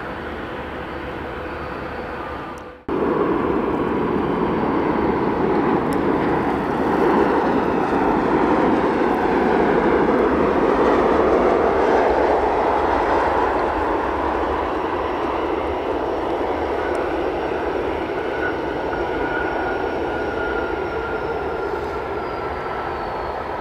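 Jet airliner engines running, a steady rushing noise with a faint whine. It cuts off briefly about three seconds in and returns louder, and a faint high tone slowly falls near the end.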